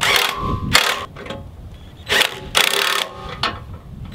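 Cordless impact wrench run in several short bursts, whining and hammering as it tightens the bolts holding a steel winch tray to the truck frame.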